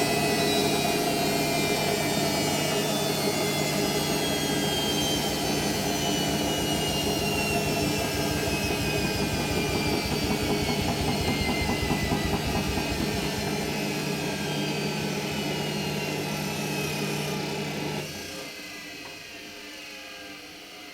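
Hoover Nextra HNL71463D washing machine's drum spinning down from its 1400 rpm final spin, its motor whine falling steadily in pitch over a low hum. About 18 seconds in, the motor drive cuts out and the sound drops sharply as the drum coasts on more quietly.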